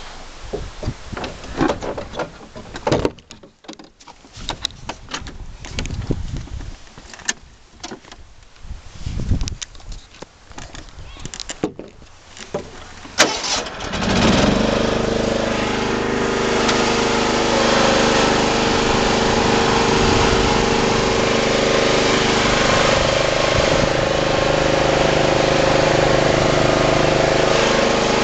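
Knocks and clicks of handling for about the first half, then the lawn tractor's small engine starts about halfway through and keeps running steadily.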